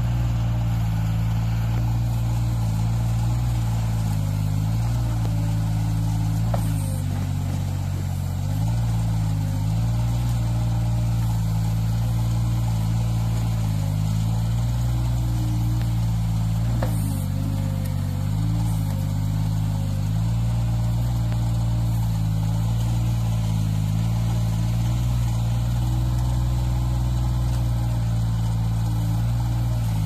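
Diesel engine of a Yanmar YTB800 mini excavator running steadily while it digs, its pitch dipping slightly now and then. A couple of sharp knocks are heard, about a third and halfway through.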